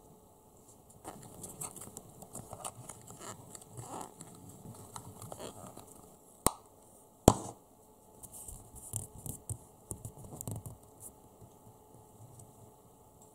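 Fingers and a wooden craft stick working modelling dough in a clear plastic box: small irregular rustles, squishes and scrapes, with two sharp clicks under a second apart about halfway through, the loudest sounds.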